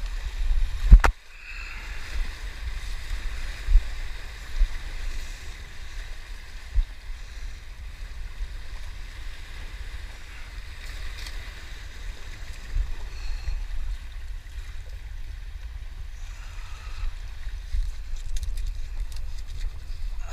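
Surf washing and gurgling around sea rocks under a low, gusty wind rumble on the microphone, with a sharp knock about a second in and a few lighter knocks after.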